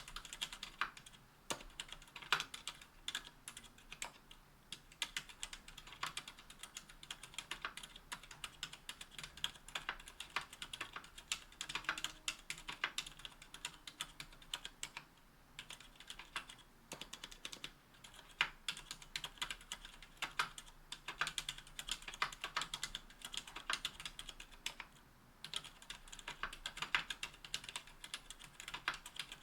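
Continuous typing on a KBDfans Tofu 60% aluminium mechanical keyboard with Cherry Silent Red linear switches (45 g, dampened) and GMK keycaps: a dense run of key presses, with brief pauses about fifteen and twenty-five seconds in.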